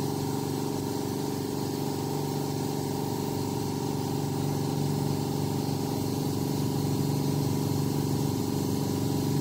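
A steady low mechanical hum, even in pitch and level throughout.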